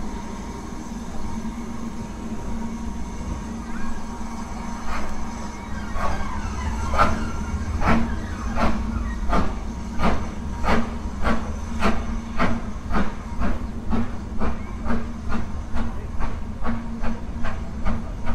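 Steam locomotive starting away: a steady hiss, then about five seconds in the chuffing exhaust beats begin, slow at first and quickening to about two a second as the train gathers speed.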